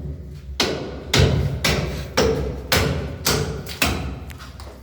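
Hammer blows striking brickwork during demolition, a steady run of sharp knocks about two a second.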